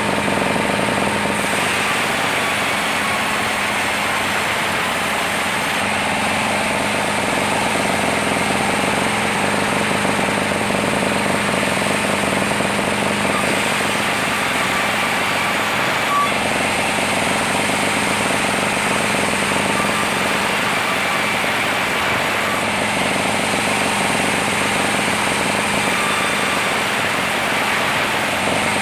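Sawmill machinery running steadily at a constant, loud level, a dense mechanical noise with a few steady tones and no breaks.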